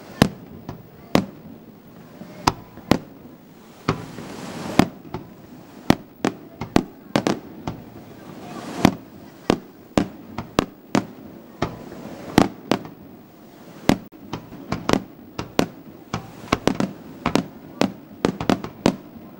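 Aerial firework shells going off in an irregular string of sharp bangs, coming closer together near the end.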